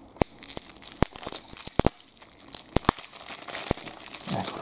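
A trading-card pack's wrapper being torn open and crinkled by hand, a continuous crackle with several sharp snaps.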